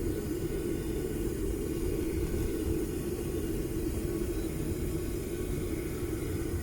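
Homemade propane furnace burner running steadily: a continuous rumble with a constant hum.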